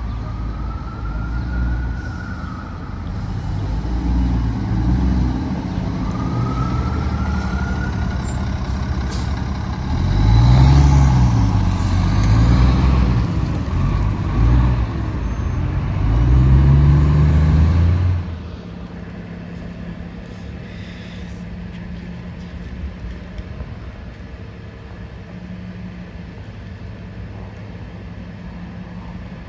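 City transit bus engine running, then revving up and dropping back several times as the bus pulls away through its gears, loudest from about ten to eighteen seconds in before falling to a low steady hum. A high whine rises and falls twice near the start.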